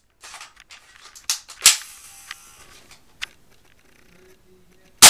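Spring-powered airsoft M4 rifle firing: sharp snaps, the loudest about a second and a half in and again right at the end, with lighter clicks between them.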